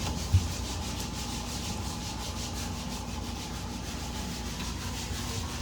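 Cloth being scrubbed hard over a fridge's surfaces in rapid, regular back-and-forth strokes, a steady rasping rub, with one low knock about half a second in.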